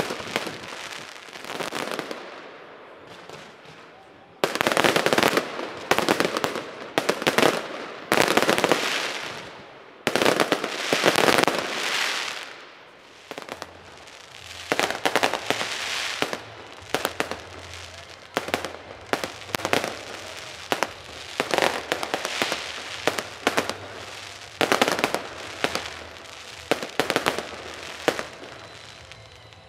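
A fireworks display: aerial shells bursting in quick succession, sharp bangs mixed with long stretches of dense crackling in the first half, then a steady string of separate bangs about one a second through the second half.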